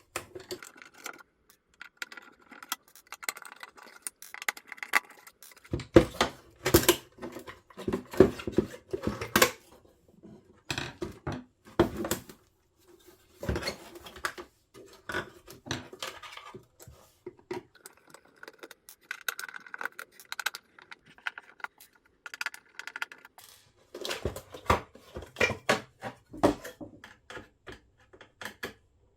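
Irregular clicking, knocking and rattling of small hard plastic and metal parts being handled, with busier clusters of clatter twice, during the DeWalt DW91XE jobsite radio's teardown.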